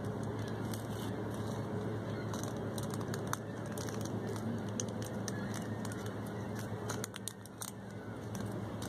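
Steady outdoor background noise with a low hum, under a few faint clicks from small fishing tackle and a folding multi-tool blade being handled.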